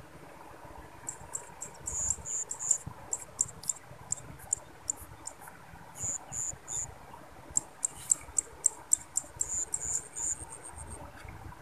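Crickets chirping in short high pulses, often in quick groups of two or three, repeating.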